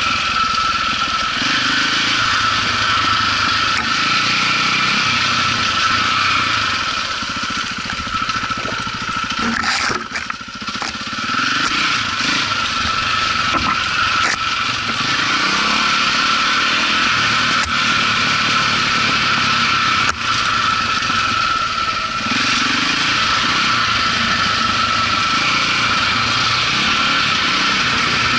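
KTM 400 EXC four-stroke single-cylinder enduro engine running under changing throttle as the bike rides a trail, heard close from a camera mounted on the bike. Its sound dips briefly about ten seconds in.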